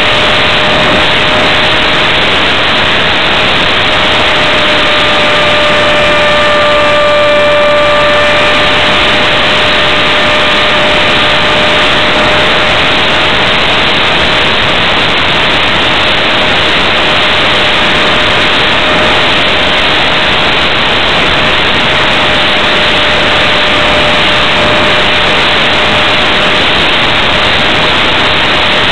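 Electric RC flying wing (ParkZone F-27C Stryker) in flight, heard from a camera mounted on its airframe: loud wind rush over the microphone with the steady whine of its electric pusher motor and propeller. The whine grows stronger for a few seconds about six to eight seconds in.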